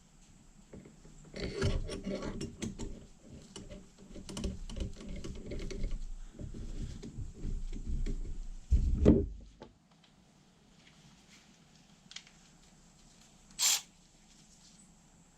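Starter motor parts being handled and fitted together by hand: metal parts rubbing, clicking and knocking for several seconds, a heavy thump about nine seconds in, and a single sharp metallic knock near the end.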